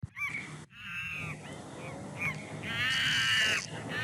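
Recorded monkey calls: a few short cries, then longer, harsh screeching calls from about two and a half seconds in.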